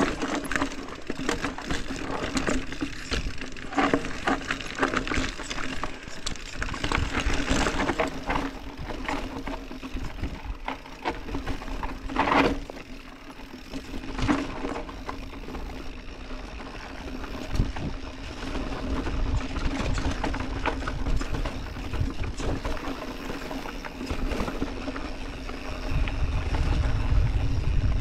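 Orbea Occam TR mountain bike rolling down a rocky dirt trail: tyres crunching over dirt and stones, with frequent rattles and knocks as the bike goes over roots and rocks. Near the end, wind rumble on the microphone grows as the bike picks up speed.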